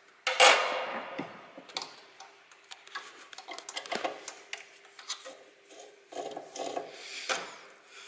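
Parts and hand tools handled during the teardown of an electronic unit: a loud clatter about half a second in, then a run of small clicks, taps and scraping, over a faint steady hum.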